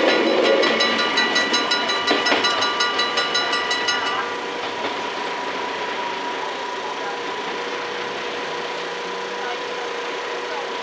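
The crossing's mechanical bells ring in rapid, even strokes and stop suddenly about four seconds in, the sign that the train has cleared the crossing. A steady hum follows as the barrier booms lift.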